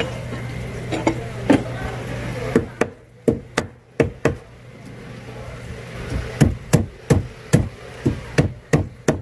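Knife chopping through sea bass on a wooden cutting board: a run of sharp knocks, irregular at first, then about three a second over a steady low hum.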